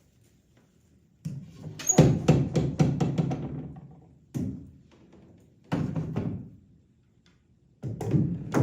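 A latch and hatch being worked by hand: three bouts of knocking and rattling, the first and longest about a second in, another near the middle, and a last one near the end.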